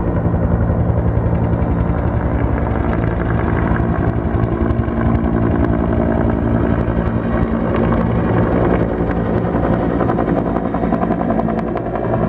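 Firefighting helicopter flying low overhead with its rotor beating in a rapid, steady chop. It runs loud and unbroken throughout.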